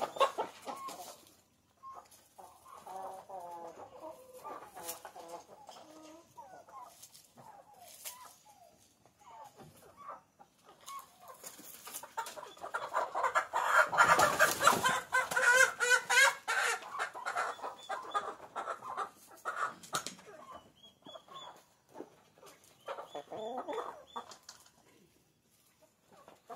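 Hybrid hens clucking in a pen; about halfway through, a caught hen held upside down by its legs squawks loudly for several seconds.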